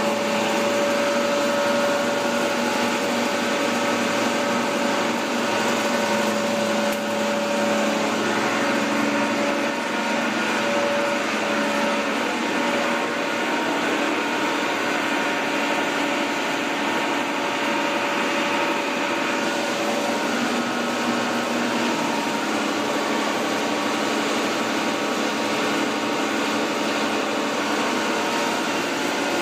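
Bread crumb production line machinery running: a steady mechanical hum and whir with several held tones, the clearest of which weakens about two-thirds of the way in.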